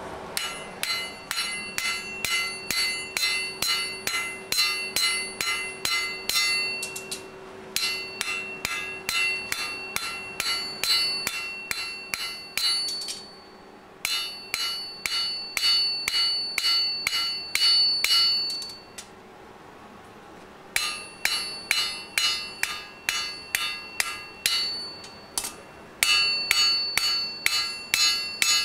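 Hand hammer forging a hot iron bar on a steel anvil, about three blows a second in runs of several seconds with short pauses between. Each blow rings with a bell-like anvil tone as the bar is flattened and drawn out toward a point.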